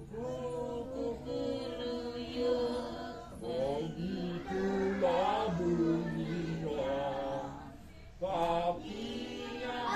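Voices singing a children's song, in phrases with long held notes and a short break about eight seconds in.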